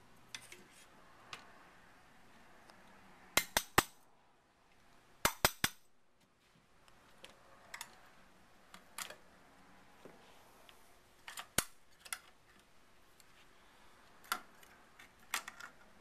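Sharp metal clicks and taps from a Remington 7600 pump-action rifle's receiver as its trigger-group pins are pushed out and the trigger assembly is worked loose. Two quick runs of three clicks come early, then single clicks every few seconds.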